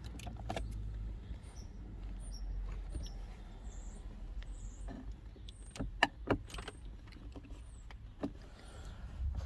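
Plastic trim clicking and snapping as the steering column bezel of a 2008 Chevy HHR is pried and worked loose from under the dash, a few sharp clicks clustered about six seconds in, over a steady low rumble.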